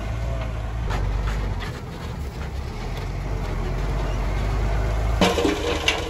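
Heavy diesel construction machine engine running with a steady low rumble. About five seconds in there is a sudden loud clatter, and a sharp knock just before the end.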